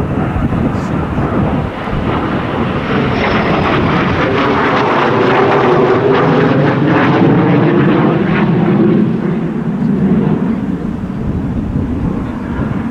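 Kawasaki T-4 jet trainer passing by, the whine and rush of its twin turbofan engines building to a peak a little past the middle, the pitch sliding as it goes past, then easing off.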